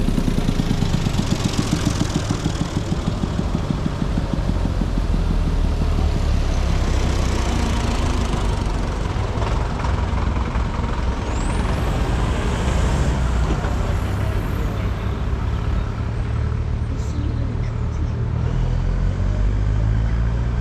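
Vintage tractors and a pickup driving past on a road: a steady low engine chug throughout, with engine and tyre noise swelling as vehicles go by, about two seconds in and again about eight seconds in.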